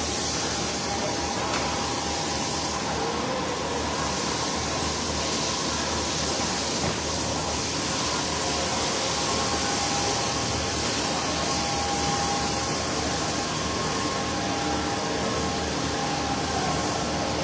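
Steady rushing background noise with a few faint, steady whining tones and no distinct events.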